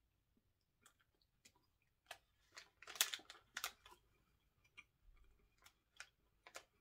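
Quiet, scattered mouth clicks and smacks of someone chewing a bite of soft Swiss roll filled with fig jam, densest and loudest about three seconds in.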